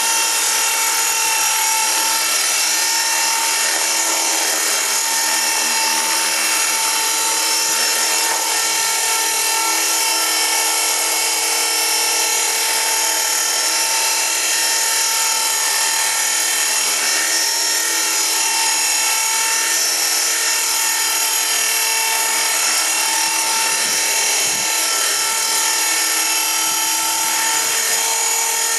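KDS 450 SV electric RC helicopter hovering: the steady, high-pitched whine of its electric motor and gears over the rush of the spinning rotor blades.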